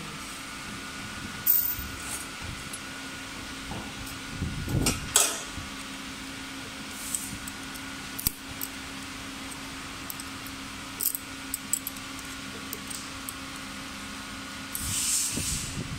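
Steel parts of a punching machine's tool set clinking and knocking as they are handled and pried with a thin metal tool, scattered sharp clicks over a steady machine hum. A brief hiss near the end.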